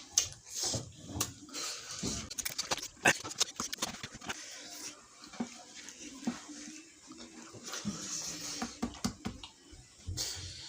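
Close-up eating noises of a person working through a spicy fish head: chewing, sucking and lip smacks, with many small wet clicks.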